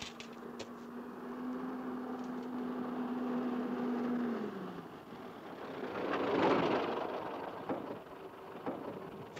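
A military jeep drives past on sand, its noise swelling to a peak about two-thirds of the way in. Before that there is a steady hum that slides down in pitch a little before halfway.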